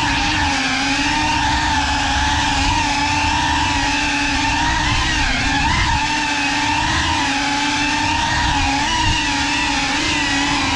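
GEPRC Cinelog 35 cinewhoop drone's motors and ducted propellers whining steadily, the pitch wavering slightly up and down with throttle.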